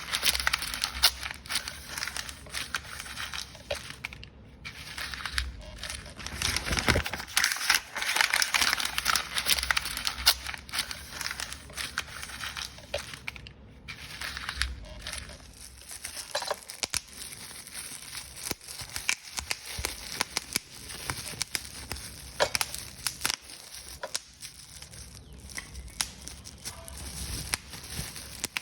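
Paper being crumpled and crushed by hand: dense crinkling and crackling, heavier for the first dozen seconds or so, then thinner with scattered sharp crackles.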